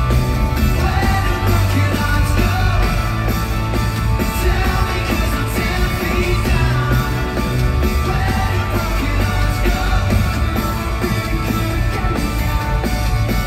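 Live rock band playing loudly, with electric guitar, bass and drums under a singing voice, recorded from within the arena crowd.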